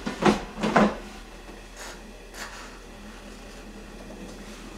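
Kitchenware knocking and clattering twice in the first second as dishes and utensils are handled, then a quieter stretch with a faint steady hum and a couple of light taps.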